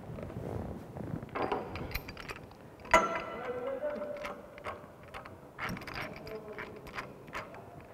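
Pipe wrench working a threaded metal pipe joint tight: a series of metallic clicks and clanks as the jaws grip and slip, with one sharp clank about three seconds in that rings briefly.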